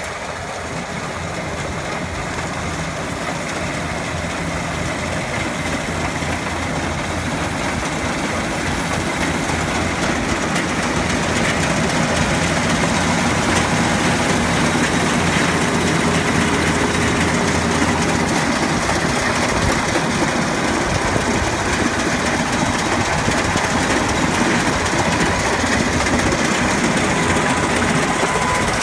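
Browns Crop Master tracked rice combine harvester running steadily while harvesting paddy, its engine and threshing machinery a continuous drone that grows louder over the first dozen seconds, then holds level.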